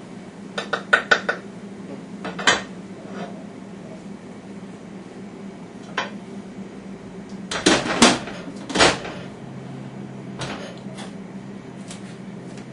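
Metal utensil and cookware clinking as food is served from a pot onto a plate: a quick run of clinks about a second in, single clinks after, and a louder flurry about eight seconds in. A steady low hum runs underneath.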